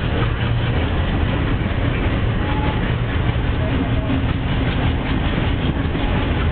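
Passenger coaches of a departing Indian express train rolling past close by: a steady, even rumble of wheels on the rails.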